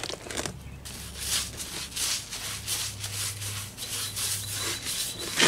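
Paintbrush scrubbing a Portland cement slurry onto a wet concrete step: rhythmic scratchy back-and-forth strokes, about three a second.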